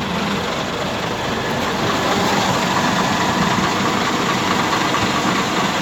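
Truck engine running steadily with drivetrain and cab noise.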